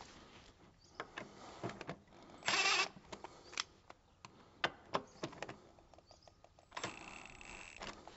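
Cordless drill winding in a screw-in door hinge in two short runs, a brief one and then a longer one near the end. Between the runs there are light clicks and taps from the drill and the hinge. Winding the hinges in pulls a swollen door back so that it shuts.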